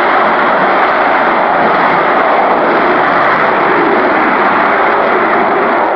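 Military jet aircraft engine noise, loud and steady throughout.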